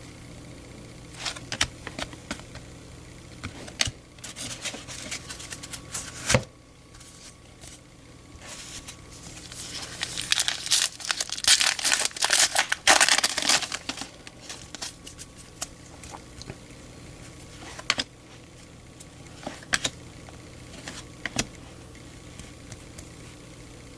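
Baseball cards being handled, with scattered sharp card snaps. About ten seconds in comes a few seconds of dense crinkling and tearing as a foil trading-card pack wrapper is ripped open.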